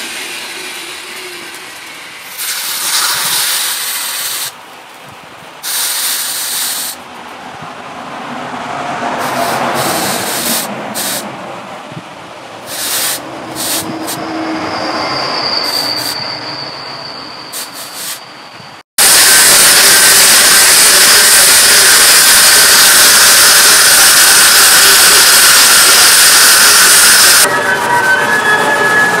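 Repeated scraping strokes of a machete blade being sharpened by hand, in separate stretches with short breaks. About two-thirds of the way in, a loud, steady hiss starts abruptly and runs for about eight seconds.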